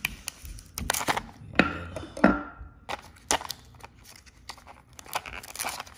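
Pen tip scraping and poking at the card backing of a coin-cell battery blister pack, then fingers tearing and crinkling the paper and plastic. Scattered irregular clicks and taps.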